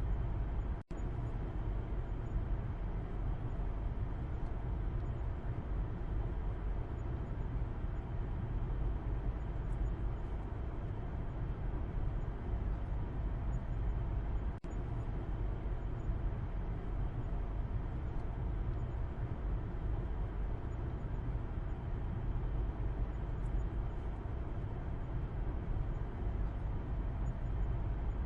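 Steady low road and engine rumble heard from the back seat inside a moving car. The sound cuts out for an instant twice, about a second in and about halfway through.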